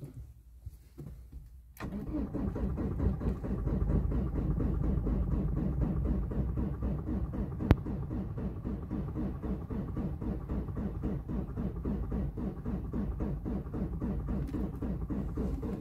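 An engine starts about two seconds in and then runs steadily, with a single sharp click near the middle.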